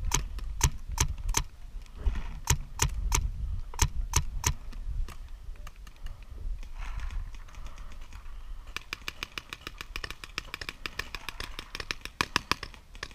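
Paintball markers firing, a string of sharp pops about three a second, then a faster, fainter volley of rapid pops from about nine seconds in.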